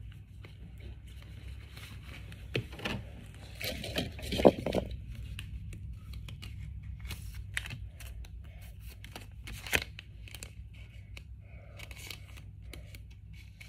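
Handling rustle and plastic crinkle of a Pokémon trading card being slid into a clear plastic card sleeve, with a few louder crackles about 3, 4.5 and 10 seconds in.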